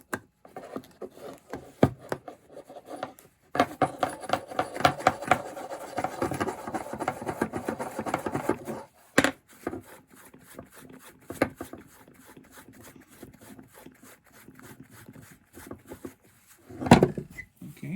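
Hand-tool work on chainsaw parts: a rapid rasping, clicking run of about five seconds starting a few seconds in, as screws are worked out. Scattered clicks and knocks of parts being handled follow.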